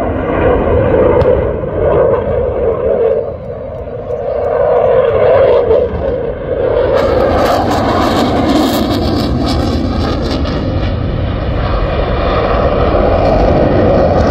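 Fighter jet's engine roar during a display flight, continuous, getting louder and harsher with crackling from about halfway through.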